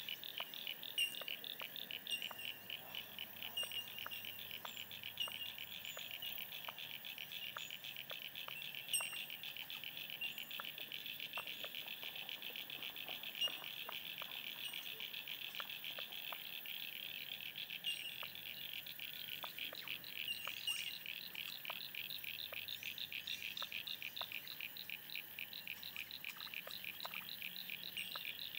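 Outdoor ambience: a steady, high, rapidly pulsing chirring chorus, with small birds giving short high chirps every second or two.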